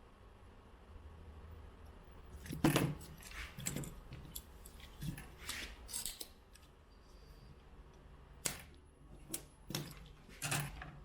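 Light metallic clinks and taps, a dozen or so at irregular intervals, the loudest about two and a half seconds in, as small metal hand tools are handled and set down during desoldering work on a circuit board.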